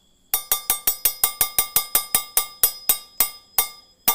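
A metal bell or chime struck over and over, each stroke ringing on. About five strokes a second at first, slowing steadily, with one last strike near the end.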